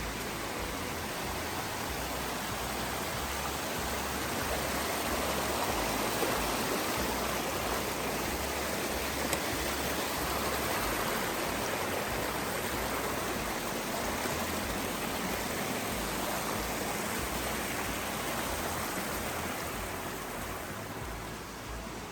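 Mountain creek rushing steadily over rocks, a continuous even hiss of flowing water.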